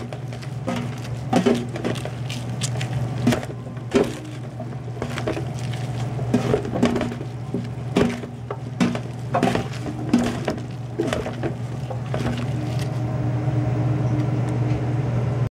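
Kitchen clatter: irregular knocks and clicks of dishes and utensils being handled, over a steady low hum. It cuts off suddenly near the end.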